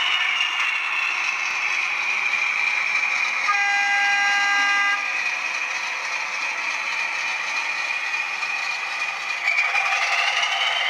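OO gauge model train running, a steady whirring rush of wheels and motor that drops slightly in pitch at first and rises again near the end. About three and a half seconds in a horn sounds once for about a second and a half.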